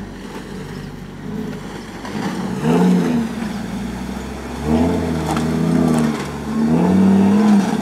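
Dodge T-Rex 6x6 truck's engine revving under load in three bursts, pitch rising and falling each time, as it crawls through a rock-crawling obstacle.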